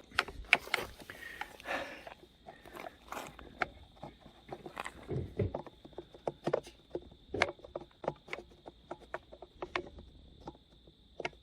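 Irregular clicks, taps and scrapes of hard plastic parts being handled: a headlight housing and turn-signal bulb socket being worked into place.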